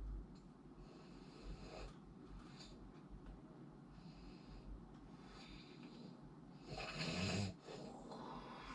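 A sleeping person snoring: soft breaths in and out every second or two, with one louder, lower snore about seven seconds in.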